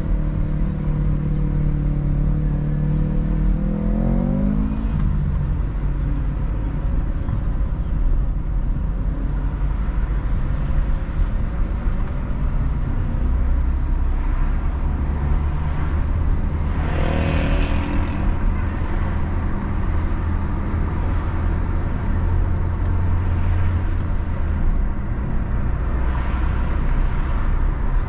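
Car driving through city traffic: a steady low rumble of engine and tyres on the road, with the engine note rising as the car speeds up about four seconds in. A brief louder rush comes around seventeen seconds in.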